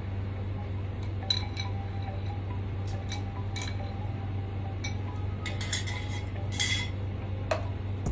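Chopsticks and a spoon clinking against a ceramic bowl and a metal hot pot as food is picked and stirred: scattered single clinks, then a quick run of them near the end. A steady low hum runs underneath.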